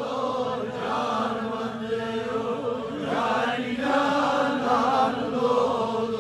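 Voices chanting a Kashmiri devotional naat in unison, the pitch rising and falling without pause.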